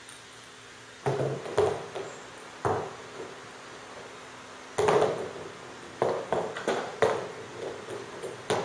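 Table-tennis balls clicking and clattering as a fan blows them off a tilted table and down the side rails: a run of light knocks in clusters starting about a second in, coming thicker near the end, over the faint steady hum of the electric fan.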